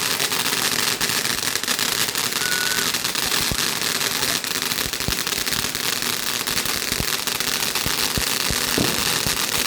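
Fireworks crackling as a dense, continuous rattle of rapid pops, with a few heavier bangs scattered through it.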